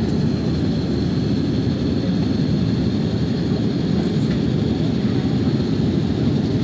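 Steady low cabin noise of an Airbus A330-900neo in flight on descent, heard from inside the cabin: engine and airflow noise from its Rolls-Royce Trent 7000 turbofans, with a faint high whine above it.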